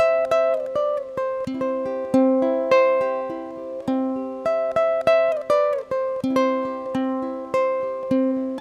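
Background music: a light tune on a plucked string instrument, notes picked two or three times a second, each ringing and dying away.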